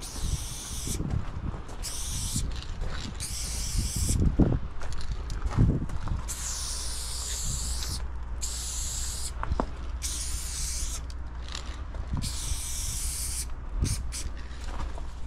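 Aerosol spray paint can spraying in repeated short bursts of hiss, about half a second to a second each with brief pauses between, as paint is laid onto a train's panel. Scattered low thumps and a steady low rumble run beneath.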